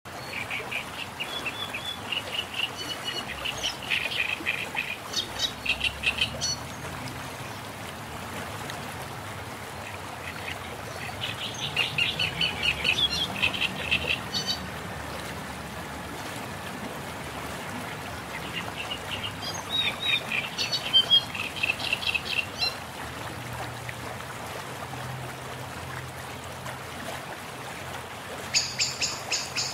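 Birds singing in four spells of rapid, repeated chirps over a steady background rush like running water.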